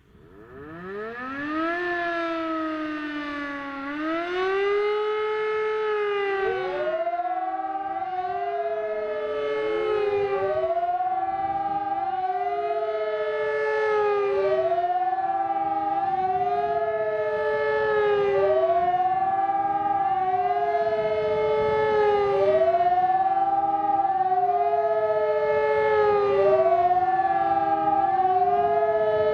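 An ECN electronic siren and an E57 motor siren together sound the civil-defence 'Warnung' alarm. They wind up from silence over the first couple of seconds, then wail in a rising and falling pitch, about one swell every two seconds.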